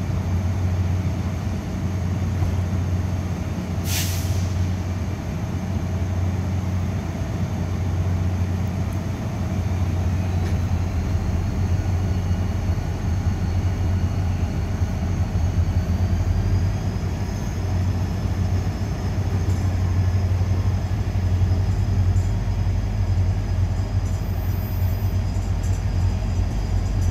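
Korail Mugunghwa-ho passenger coaches pulling slowly away from the platform, a steady low rumble and hum of the moving train. A short hiss of air sounds about four seconds in, and a faint thin whine rises slightly as the train gathers speed.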